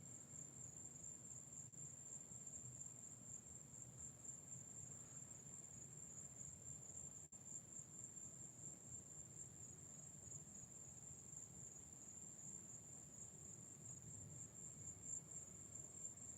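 Crickets trilling faintly in a steady, high-pitched, unbroken drone.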